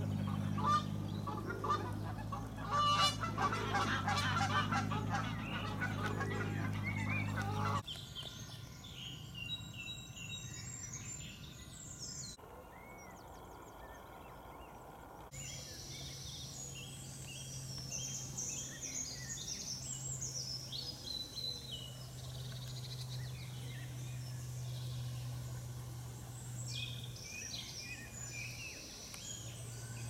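Honking bird calls over a steady low hum; after a sudden change about eight seconds in, many short, high bird calls and song.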